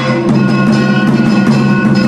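Music of held, steady tones with quick percussion strikes over them.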